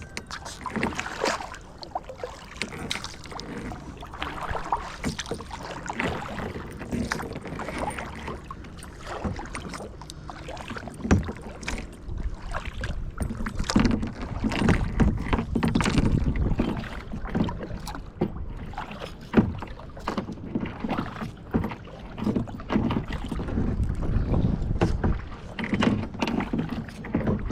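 Kayak paddling: paddle blades dipping and splashing in lake water in an irregular run of strokes, with water sloshing against the hull.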